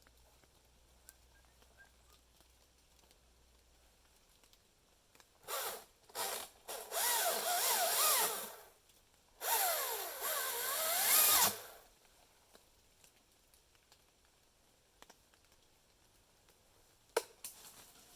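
Cordless electric chainsaw run in two short bursts of about three and two seconds, its motor pitch wavering as it cuts under load, with nothing heard running between or after the bursts. A few light knocks follow near the end.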